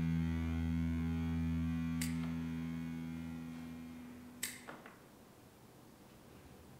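An electric guitar chord held and ringing out, fading away over about four seconds, with a few light clicks, the sharpest about four and a half seconds in.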